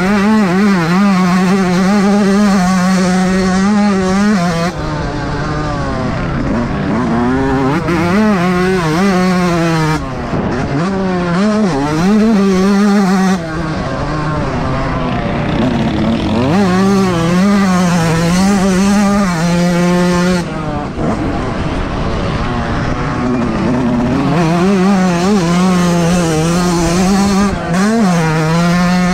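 Yamaha YZ125 two-stroke single-cylinder dirt bike engine, heard from on board, revving hard and falling away again and again as the rider works the throttle around a motocross track, with short off-throttle dips between the pulls.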